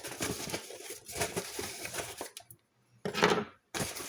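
A taped cardboard box being cut and pried open, with the packing tape crackling and the cardboard rustling. The sound comes in irregular scrapes for about two seconds, stops briefly, then a short louder rip comes about three seconds in.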